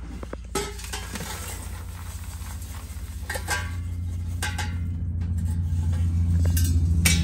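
Pieces of freshly quenched biochar sliding and clattering out of a stainless-steel keg into a plastic bucket, with a few sharp knocks of the metal keg, over a low steady hum.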